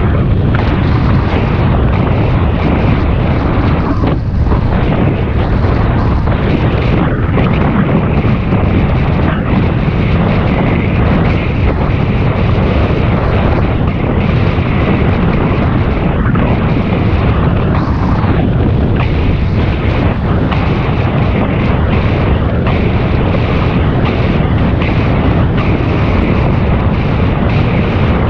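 Steady wind rushing over the microphone of a camera on a bicycle ride, a loud, even roar with no breaks.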